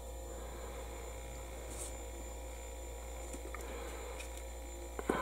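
Steady low electrical hum with a faint high whine, broken by a few faint light clicks, the sharpest one just before the end.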